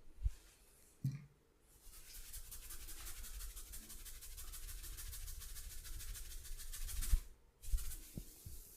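Hands rubbing briskly during a massage in a fast, even rhythm, starting about two seconds in and stopping about seven and a half seconds in. Short low thumps come near the start and near the end, the loudest just before the rubbing stops.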